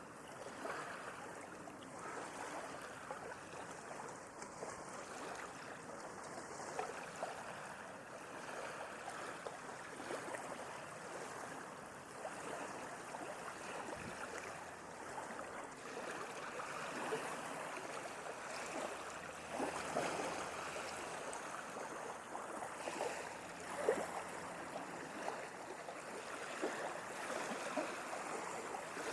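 Sea water washing and lapping at the shore: a steady watery wash with small splashes running through it, and a sharper splash about 24 seconds in.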